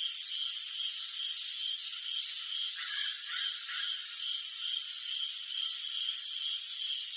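Crickets chirping in a steady chorus: evenly repeated chirps, about two a second, over a continuous high hiss of many insects.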